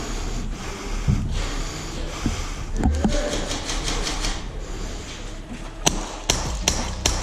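Airsoft gas blowback Glock 19X pistol firing four quick shots, about two and a half a second, near the end, each a sharp crack. Before them come low rustling movement and a couple of dull thumps.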